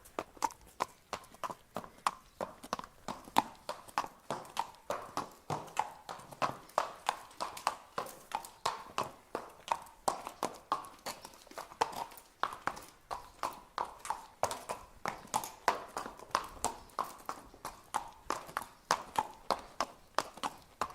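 Horse walking, its hooves clip-clopping in an even, unbroken rhythm of about four sharp knocks a second.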